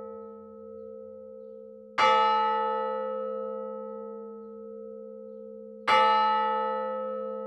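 A large bell struck twice, about four seconds apart. Each stroke rings out and fades slowly, and a low hum lingers between strokes.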